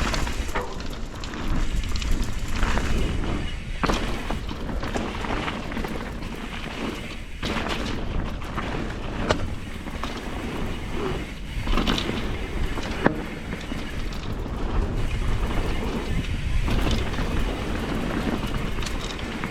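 Enduro mountain bike riding down a wet dirt trail, heard from the rider's camera: a steady low rumble from tyres and wind, with frequent knocks and rattles from the bike over bumps.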